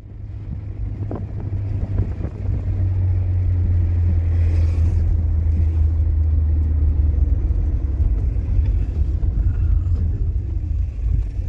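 Car engine and road noise heard from inside the cabin while driving: a steady low rumble that grows louder over the first few seconds.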